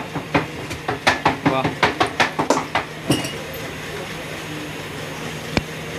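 Kitchen clatter: metal utensils and pots knocking and clinking in a quick run of about a dozen sharp strikes, then a steady low hum with one more knock near the end.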